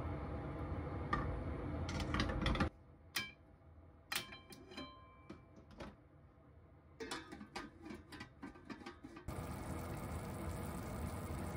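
Steady sizzling of sauce in a frying pan with stuffed green peppers and meat patties; it cuts off abruptly. A quieter stretch of clinks and taps from the pan's lid follows, one briefly ringing, before the steady sizzle starts again.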